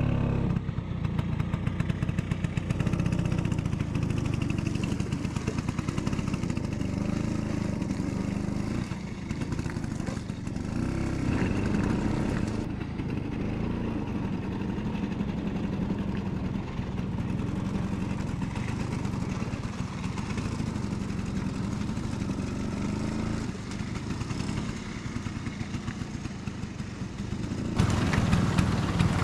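Classic Vespa scooter's two-stroke engine running under load on a rough track, its note rising and falling with the throttle.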